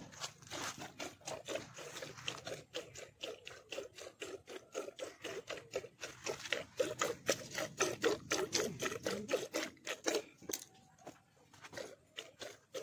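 Cow being milked by hand into a steel pot: milk spurts hit the metal in a steady rhythm of several squirts a second, one with each pull on a teat, easing briefly near the end.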